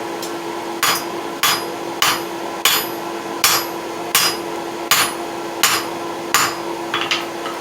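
A 3.5-pound cross peen hand hammer striking hot steel on an anvil, drawing out the stock in its first heat. About nine blows land at a steady pace, each with a brief metallic ring.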